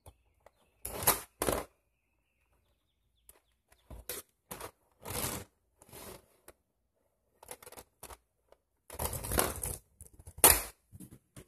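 Metal links of a loose RC tank track clattering and rattling as the track is lifted, dangled and piled onto a tabletop, in a string of short bursts, the loudest near the end as the links are set down in a heap.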